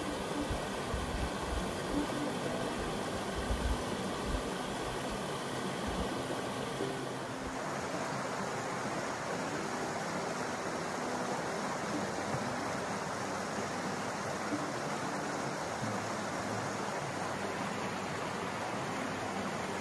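Steady rushing noise with irregular low thumps, changing abruptly about seven seconds in to a smoother, even hiss.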